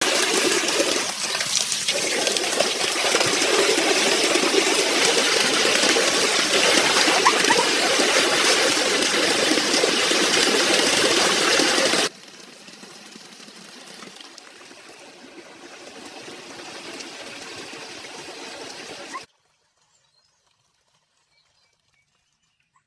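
Water rushing and splashing, loud and steady for about twelve seconds, then quieter after an abrupt drop, stopping suddenly about nineteen seconds in.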